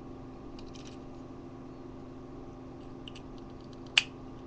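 Small clicks of plastic action-figure parts being handled, with one sharp click about four seconds in as a plastic peg is pushed into place, over a steady low hum.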